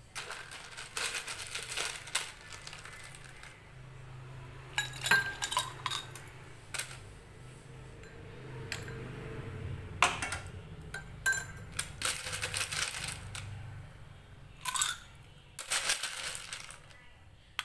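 Ice cubes dropped into a tall drinking glass, clinking against the glass and each other in irregular clusters, with a few short ringing notes from the glass.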